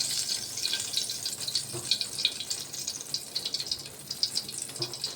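Freshly poured cooking oil sizzling in a hot pot, a steady hiss with irregular small crackles.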